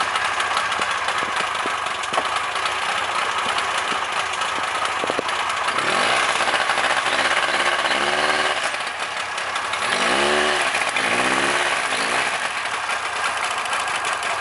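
Small tracked snowmobile engine running hard and smoking blue, typical of a two-stroke. Its revs rise and fall a few times in the second half.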